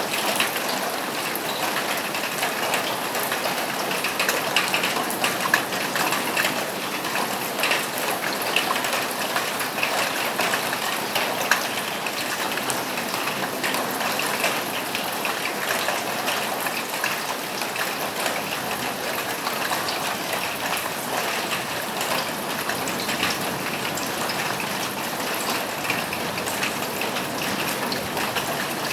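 Steady rain falling on a roof: a continuous hiss dense with the patter of individual drops.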